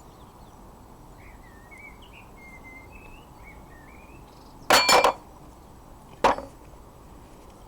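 Loose iron parts of a vintage wrought iron locksmith vise clanking against metal as they are handled during dismantling: two strikes close together nearly five seconds in and one more about a second and a half later, each with a short metallic ring.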